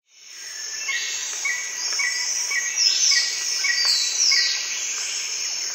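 Forest ambience fading in: a steady high insect drone, a short chirp repeated about twice a second, and a few falling whistled bird calls near the middle.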